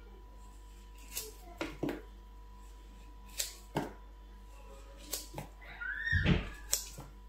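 Knife cutting ripe plantain into pieces against a cutting surface: a series of short sharp taps, about one or two a second, with a louder scraping rustle about six seconds in.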